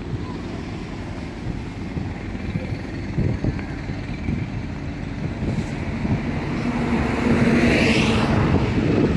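Wind rumbling on the microphone, with a vehicle passing that grows louder in the second half and is loudest near the end.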